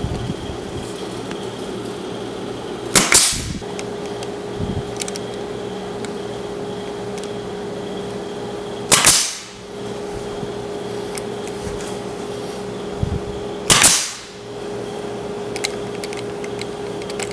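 A pneumatic 16-gauge nailer firing three times, several seconds apart, each a sharp crack with a short burst of air as a 1.5-inch brad is driven into plywood. A steady hum runs underneath.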